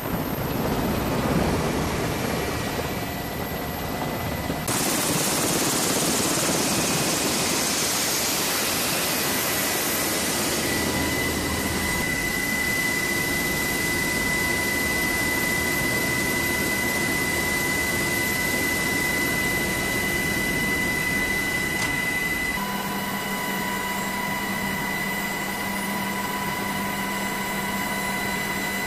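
MH-60S Seahawk helicopter's twin turboshaft engines and rotor running on deck, heard from inside the cabin: a steady loud rush with a high turbine whine. The sound shifts abruptly about five seconds in and again near the end.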